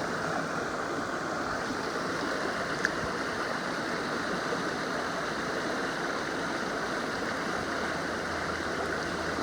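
Water of a small creek waterfall running steadily, with one faint click nearly three seconds in.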